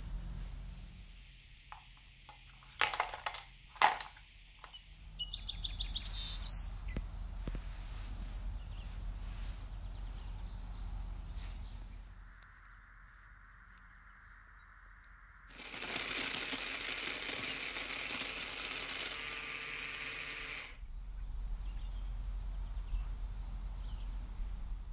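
Kitchen prep sounds: sharp clicks and a quick clatter of hard pieces landing in a plastic food-chopper bowl, then several seconds of steady hiss.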